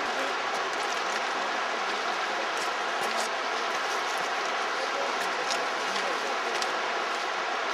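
Shallow river water rushing steadily over a gravel and cobble bed, with scattered faint ticks of small splashes.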